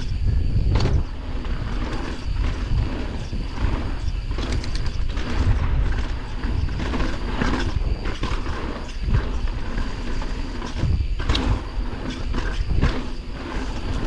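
Mountain bike riding fast down a dirt trail: a steady low rumble of wind on the microphone, with frequent knocks and rattles as the bike goes over bumps.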